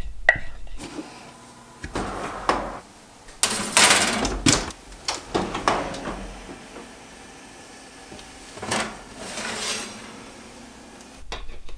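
Kitchen oven door being opened with a clatter, followed by a metal baking sheet being scraped out along the oven rack. A few other scattered knocks and clicks are heard.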